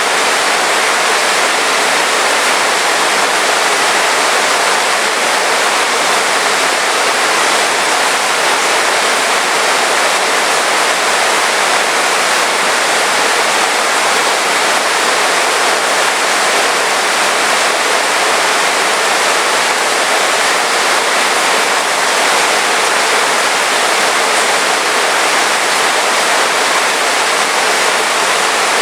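Heavy rain falling steadily, a dense even hiss with no let-up and no thunder.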